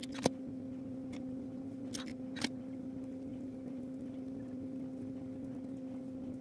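A steady low hum, with a few sharp clicks and taps as a hot glue gun is pressed to the wire stem and crocheted yarn is wound around it. The loudest click comes just after the start, and another about two and a half seconds in.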